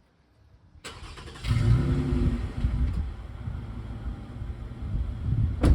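A car engine starts running about a second in and keeps running steadily, heard close to its tailpipe. A sharp knock comes near the end.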